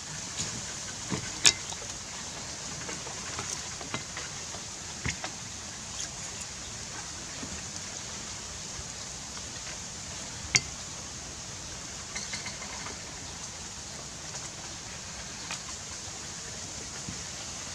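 Steady outdoor hiss with scattered soft taps and clicks as hands skewer marinated rat meat on lemongrass stalks on a banana leaf. Two sharper clicks, about a second and a half in and about ten and a half seconds in, are the loudest.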